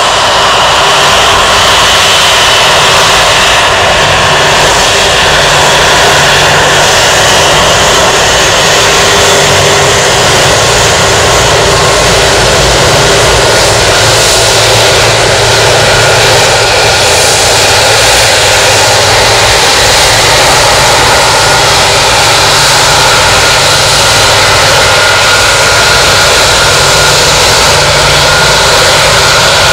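Airbus A330-243 airliner's Rolls-Royce Trent 700 turbofans running at taxi power as it rolls past: a loud, steady jet whine over a low rumble.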